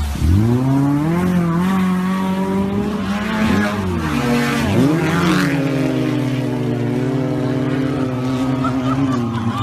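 An off-road 4x4's engine revving hard under load: the pitch climbs quickly in the first second and holds high, drops and climbs back twice around the middle, then holds steady.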